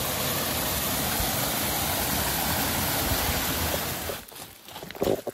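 Rushing mountain stream: a steady, full water noise that falls away about four seconds in, leaving irregular knocks and scuffs.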